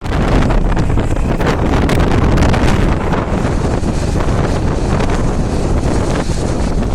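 Strong storm wind blowing hard across the microphone, a loud, continuous rush of wind noise heaviest at the low end.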